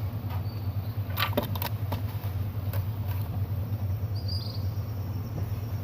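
A steady low mechanical hum, with a few light clicks about a second and a half in and a short high chirp past the middle.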